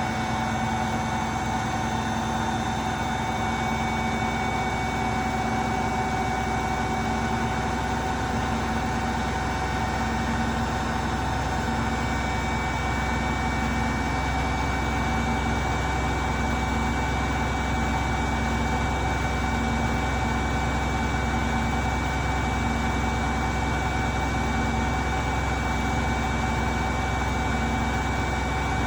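Beko washing machine on its spin cycle: a steady motor whine over a low hum, with a low tone pulsing at an even rhythm as the drum turns.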